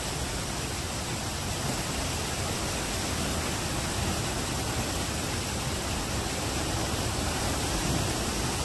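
Ocean surf breaking over a lava-rock shoreline: a continuous rushing noise with no separate crashes standing out.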